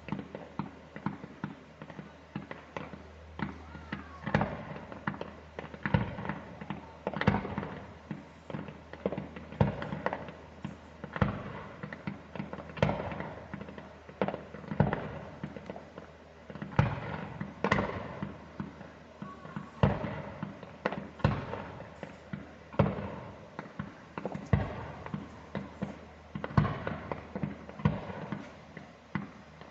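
Fireworks display: shells bursting in an irregular run of sharp bangs, about one a second, each followed by a rolling echo.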